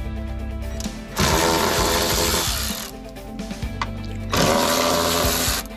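Cordless ratchet motor running twice as it drives T25 Torx screws out of a grille panel: once for under two seconds and again near the end for about a second. Background music plays throughout.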